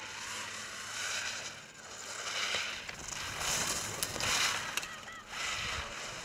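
Racing skis carving giant slalom turns on firm snow: a scraping hiss that swells with each turn, four times about a second and a half apart, with a couple of sharp clicks near the middle.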